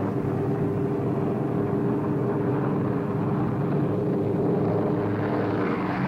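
Propeller aircraft piston engines droning steadily, with a few constant pitched tones over a rushing noise.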